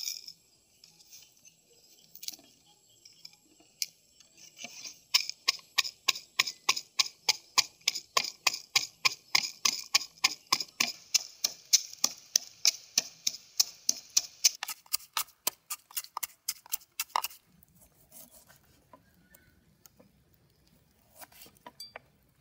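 Wooden pestle pounding salt in a terracotta mortar: an even run of sharp knocks at about four a second that lasts around twelve seconds, then stops.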